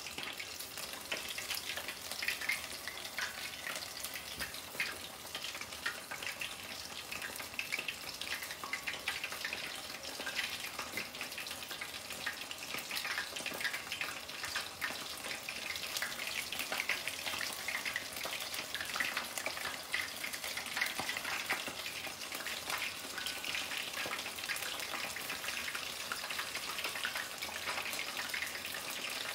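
Breaded smelt fish deep-frying in a pot of hot oil: a steady sizzle with a dense crackle of small pops.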